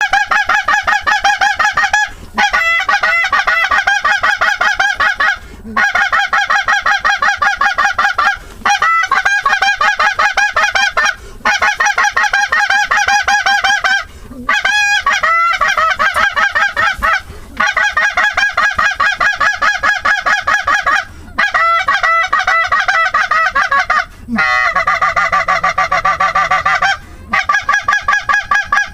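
Canada geese honking in a dense, rapid, continuous chorus, broken by brief pauses about every three seconds.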